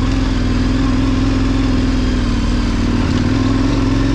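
KTM 1090 Adventure's V-twin engine running steadily as the motorcycle is ridden off-road.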